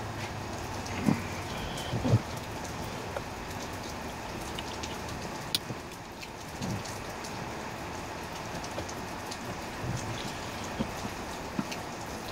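Hands handling a Jeep Commander XK's blower motor resistor and its wiring behind the glovebox: a few low knocks, the loudest about one and two seconds in, and scattered light clicks of plastic parts, over a steady hiss.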